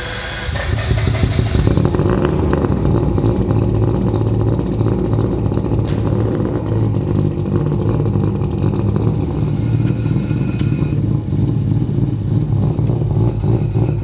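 Mazda RX-7's three-rotor rotary engine running just after start-up. It grows louder over the first two seconds, then holds a steady, loud idle.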